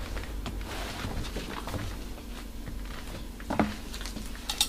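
Soft rustling of whole nappa sheep and goat leather hides being lifted and turned over by hand on a pile, with one sharp click about three and a half seconds in.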